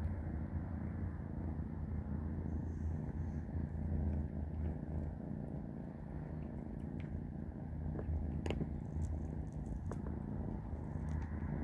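Kitten purring close by, a steady low rumble, with a few light clicks about eight to ten seconds in.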